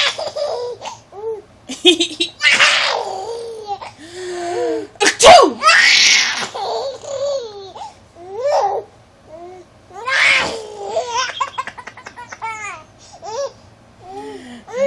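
A baby laughing hard in repeated bursts of giggles and belly laughs. Between the laughs come several sharp, breathy bursts of an adult sneezing, which set off each fresh round of laughter.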